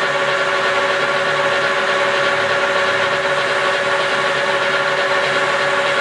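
Large engine lathe running at a steady speed, turning a long steel shaft held in a roller steady rest: a steady mechanical hum with several constant tones.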